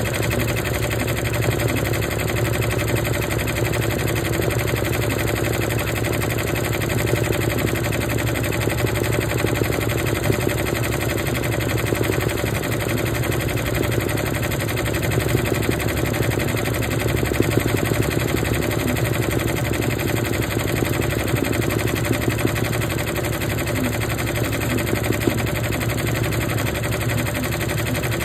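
Embroidery machine running, its needle stitching at high speed with a fast, even mechanical clatter that holds steady throughout.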